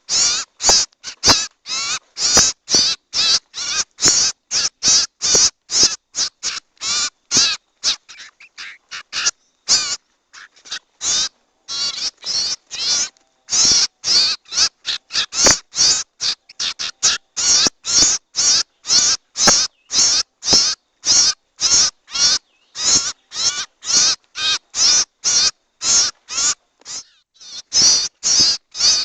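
Recorded lure call for the cipow (common iora): short harsh, raspy bird calls repeated about two to three a second, thinning out and fainter for a few seconds near the middle before picking up again.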